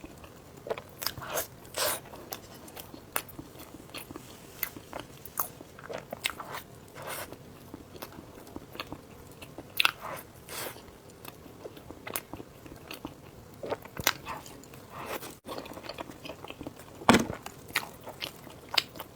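Close-miked biting and chewing of soft scallion bread rolls filled with sauce and pork floss: irregular mouth clicks and short chewing sounds.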